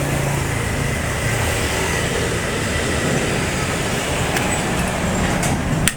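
Steady mechanical running noise with a low hum, like a motor or engine running at an even speed.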